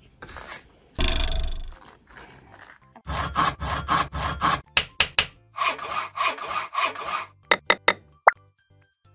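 Plastic Lego pieces being handled and rubbed together: rhythmic rasping scrapes, about three or four strokes a second, then a few sharp clicks and a short rising squeak near the end.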